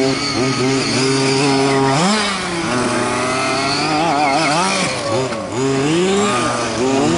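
Small two-stroke petrol engine of a large-scale RC buggy running hard, revving up and down again and again as it is driven.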